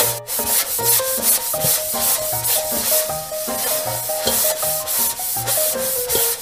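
A small sponge scrubbing a plastic doll in a toy bathtub: quick, repeated rubbing strokes, a couple to a few per second, over light background music with a stepping melody.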